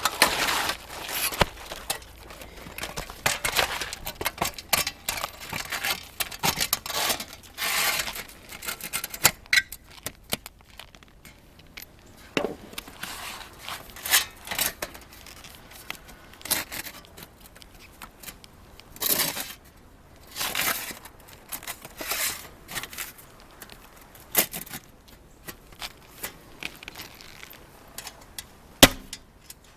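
Asphalt shingles being handled and fitted on a roof: repeated scraping, rustling and tearing sounds, with a few sharp knocks near the end.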